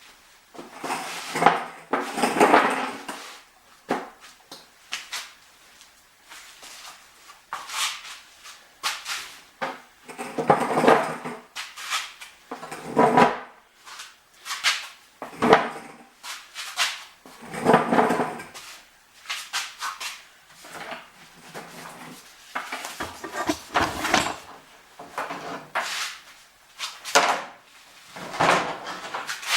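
Metal parts being handled: irregular clanks and knocks, with several longer scraping, rattling stretches of a second or two.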